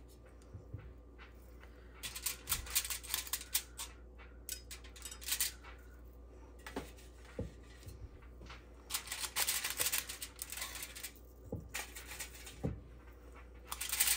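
A medium Pampered Chef portion scoop scooping raw sausage-ball mixture and releasing it onto a baking sheet. Short bursts of clicking and scraping come every couple of seconds, with a few soft thumps.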